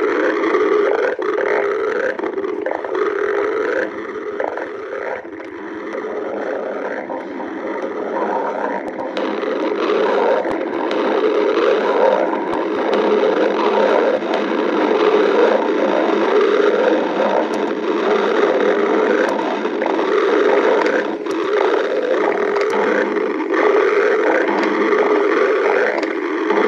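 A hungry stomach growling: loud, continuous gurgling rumbles with no pause, easing a little about five seconds in before building again.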